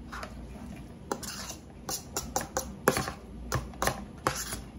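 Chopped artichoke hearts tipped from a plate into a plastic mixing bowl, with the plate knocked and scraped against the bowl to clear it: an irregular run of about ten sharp, light taps and clicks, starting about a second in.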